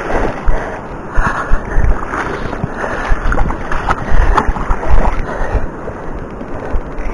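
Wind buffeting the microphone in repeated gusts over the steady rush of river water, with a few sharp clicks and knocks.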